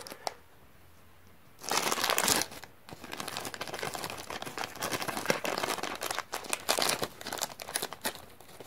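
Thin clear plastic bag crinkling as a small figure is handled and worked out of it: a loud rustle about two seconds in, then crinkling with many small crackles.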